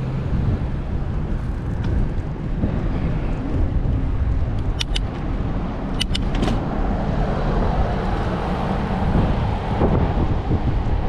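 Car traffic passing on the adjacent road, heard through a steady rush of wind on the microphone of a camera on a moving bicycle. A few sharp clicks come about five seconds in and again around six seconds.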